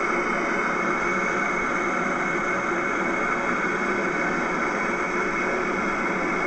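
Concorde's four Olympus 593 turbojets idling on the ground: a steady rushing noise with a thin, even whine over it. It is played back from an old VHS tape through a television speaker.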